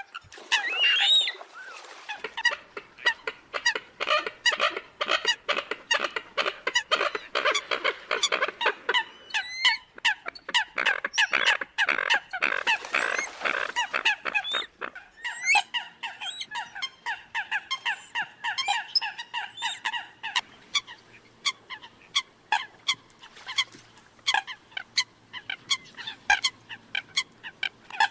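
A flock of Eurasian coots calling: many short, sharp calls overlapping in a dense chorus, busiest in the first half and thinning somewhat after the middle. A recording of coot calls of the kind used as a lure to draw coots in.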